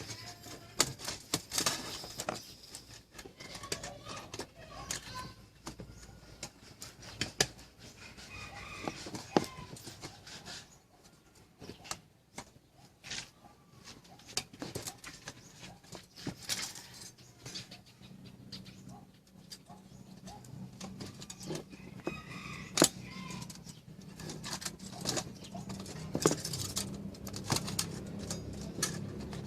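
Irregular sharp clicks and knocks, with birds calling in the background, among them chickens. A low steady hum comes in about two-thirds of the way through.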